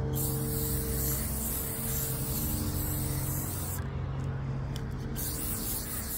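Aerosol can of clear varnish spraying in long hisses, with short breaks about four seconds in and again a second later.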